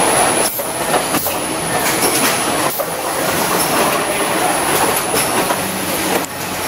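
Automated plant tray-filling line running: conveyors and robot arms clatter and rattle irregularly under a steady high-pitched whine.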